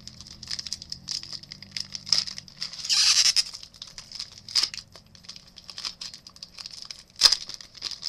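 Foil trading-card pack wrappers crinkling and tearing under the hands in a run of crackles. A longer tearing noise comes about three seconds in, and a sharp crackle near the end.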